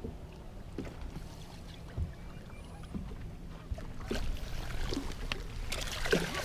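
Water lapping and splashing against a fishing boat's hull over a low steady rumble, with scattered light knocks and clicks on the boat, busier in the last couple of seconds.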